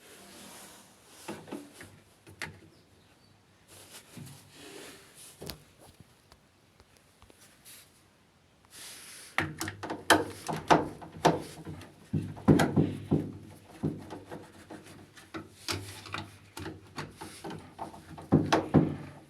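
Hands-on handling noises: scattered clicks, knocks and rubbing, which turn into a busy run of louder sharp knocks and clatters about nine seconds in.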